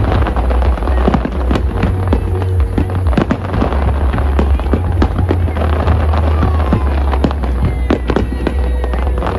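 Fireworks display going off: a rapid, irregular string of bangs and crackles with no pause, over music with a heavy, steady bass.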